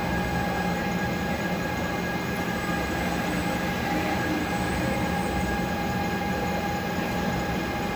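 Concrete 3D printing machinery running steadily: a constant mechanical drone with a steady whine on top.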